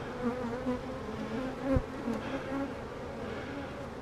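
Carniolan honeybees buzzing around an open hive as frames are handled: a steady hum with several wavering pitches from many bees in flight. There is one brief knock a little before two seconds in.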